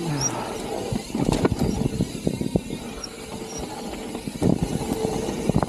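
Mountain bike rolling fast down a dirt trail: a steady rush of tyre and wind noise, with clusters of rattling knocks from the bike over rough ground about a second in and again near the end.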